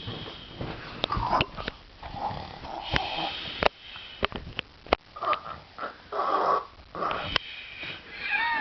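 Snoring: irregular, rough, snorting breaths about a second long, with sniffs and a few sharp clicks between them.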